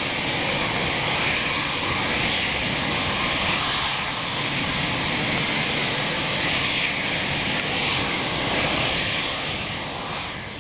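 Eurofighter Typhoon jet engines, a steady loud rushing noise with a thin high whine over it, easing off near the end.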